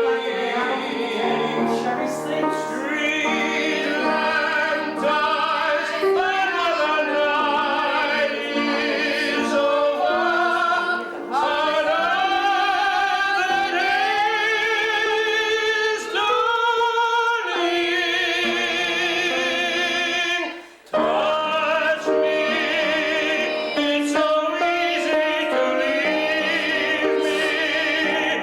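Opera-style singing with strong vibrato over musical accompaniment, with a brief break about twenty seconds in.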